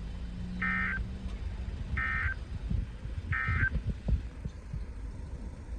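Three short buzzy bursts of digital data tone from a weather radio, about a second and a half apart: the SAME End of Message code that closes a NOAA Weather Radio weekly test. Under them is a low rumble with scattered dull thumps.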